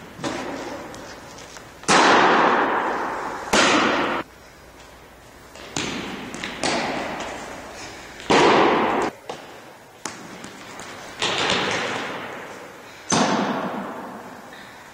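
Fast-pitch softballs smacking into a catcher's leather mitt, each sharp pop trailing off in a long echo around a gym hall. Four loud pops, with several lighter thuds in between.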